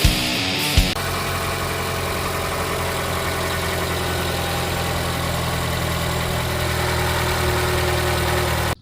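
Rock guitar music ends about a second in. A car engine then idles steadily with an even low hum, and the sound cuts off abruptly near the end.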